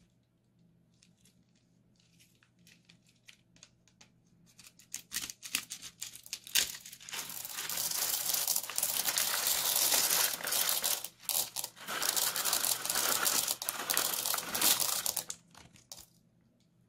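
Clear plastic piping bag full of plastic beads crinkling and rustling as it is squeezed, the beads rattling inside it and spilling out onto the slime. Scattered crackles come first, then a dense, loud crinkling for about eight seconds with a brief pause in the middle, stopping as the bag empties.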